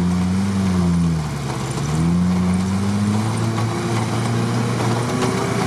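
Off-road buggy engine working through deep muddy water, its revs dropping about a second in and then climbing again and holding, over the hiss of splashing water.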